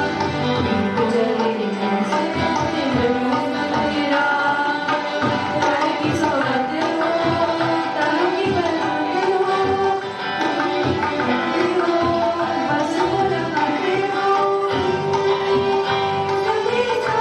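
Indian music: tabla drumming under a sustained melody that slides between notes.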